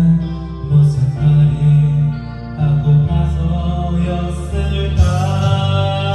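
Background music of long, held notes in slow, chant-like chords that change every second or so.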